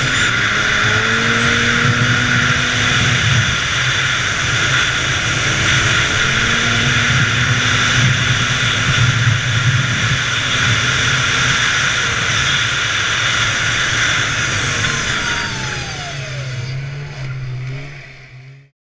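Polaris Indy 500 snowmobile's two-stroke engine running hard at speed, over a steady rush of wind and track noise. Near the end the revs fall away as it slows, and the sound cuts off suddenly.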